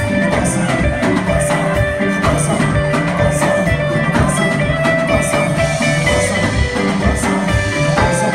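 Live band playing a steady, upbeat groove: electric guitar lines over bass guitar and a drum kit keeping an even beat.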